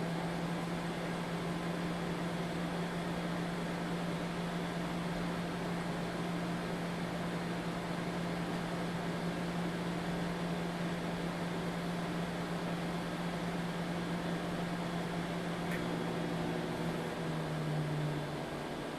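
Microwave oven running at power level 5, a steady low hum over a constant whir, with the hum changing about a second before the end.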